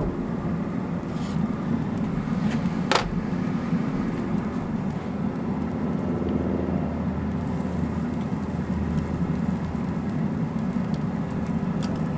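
Steady low rumble, with sharp clicks twice, about 3 s apart, as kabob skewers are turned over on the metal grill grate.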